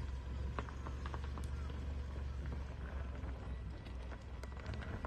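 A vehicle engine running with a steady low rumble, with scattered light clicks and knocks over it.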